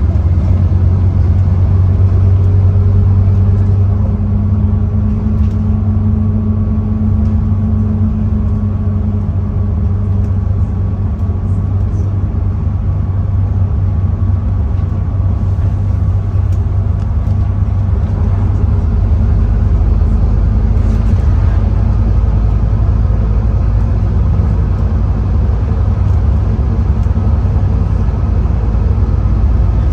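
A Scania N230UD OmniCity bus's five-cylinder diesel engine running steadily under way, heard from inside the bus as a loud low drone. Its pitch rises slightly and falls back, with a faint thin whine above it.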